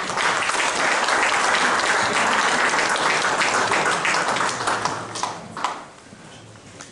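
Audience applauding, with many hands clapping together; the applause dies away about five to six seconds in.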